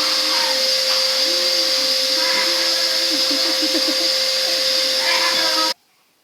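Vacuum cleaner motor running steadily with a constant whine, then switched off, cutting out abruptly near the end.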